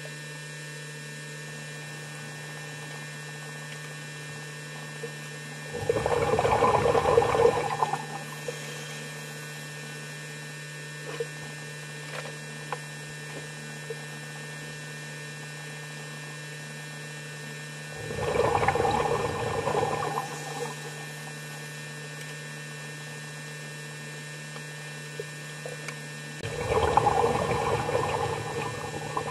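Underwater recording with a steady low hum, broken three times by noisy rushes of water lasting about two seconds each, the first about six seconds in, the second about eighteen seconds in and the last near the end.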